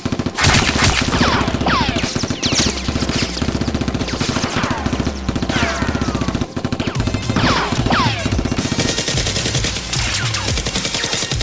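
Rapid automatic gunfire sound effects in long bursts, laid over background music with a steady low beat.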